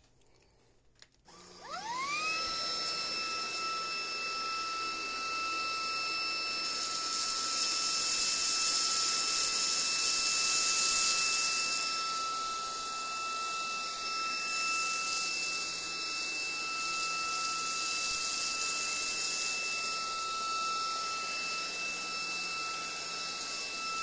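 Maircle cordless stick vacuum switched on about a second in, its motor whining up to speed and then running with a steady high whine over rushing suction air. It is picking up rice from a low pile carpet, and the hiss of the suction swells for a few seconds midway.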